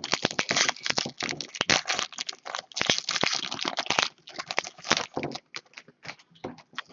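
Crinkling and crackling of a plastic or foil card-pack wrapper being handled, dense for about four seconds and then thinning to scattered crackles.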